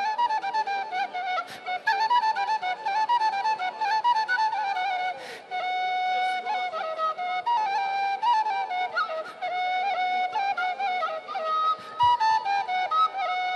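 Frula, the Serbian wooden duct flute, played solo: a fast, heavily ornamented folk melody, with a few longer held notes about halfway through.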